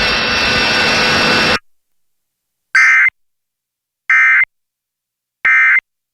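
A loud hiss with faint steady tones cuts off about a second and a half in. Then come three short, identical bursts of warbling digital data tones about 1.4 s apart: the EAS SAME End of Message code that closes an Emergency Alert System test.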